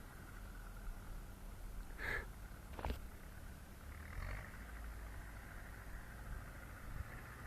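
Zetor 7745 Turbo tractor's turbocharged four-cylinder diesel engine running steadily under load while pulling a plough, with a steady low drone and a faint even higher whine. Three short, sharper sounds cut in about two, three and four seconds in, the middle one a sharp click.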